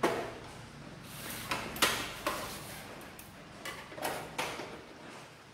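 Plastic casing of a Canon LBP2900 laser printer being pried apart with a screwdriver: a string of sharp clicks and snaps as the cover's latches pop loose.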